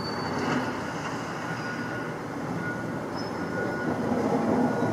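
Caterpillar hydraulic excavator running steadily as it works through demolition debris, with faint high squeals coming and going.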